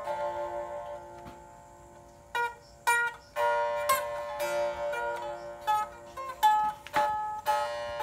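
Solo sape, the carved wooden Borneo lute of the Orang Ulu, plucked in a slow melody whose notes ring on over one another. It thins out a second or so in, then the plucking picks up again with sharper notes from about two and a half seconds.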